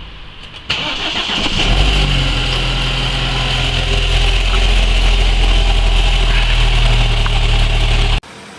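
BMW F30 320i engine cranked and started, catching after about a second, then idling steadily. The sound cuts off suddenly near the end.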